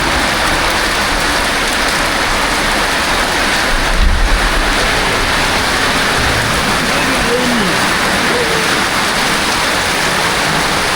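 Heavy rain falling steadily, a loud even hiss of downpour.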